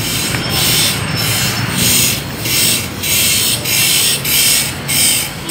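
Walking sounds close to the microphone: rasping swishes about twice a second, in step with walking over concrete.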